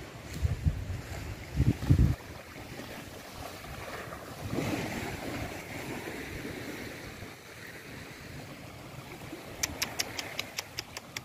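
Small waves washing on a sandy shore, with wind buffeting the microphone in low gusts during the first two seconds. A quick run of sharp clicks comes near the end.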